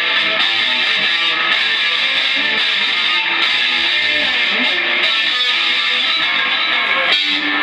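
Electric guitar played loud as noise music: a dense, continuous wash of sound with pitches sliding and shifting throughout, changing abruptly about seven seconds in.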